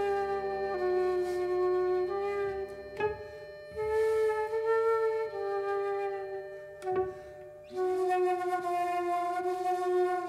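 Slow music: a wind instrument plays a melody of long held notes over a faint low drone, with a sharp percussive knock about three seconds in and another about seven seconds in.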